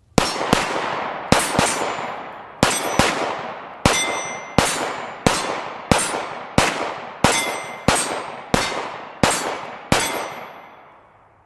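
Sphinx SDP Standard 9mm pistol fired in a steady string of about sixteen shots, roughly one every 0.7 s, each crack followed by a long fading echo. A high ring lingers after several of the shots.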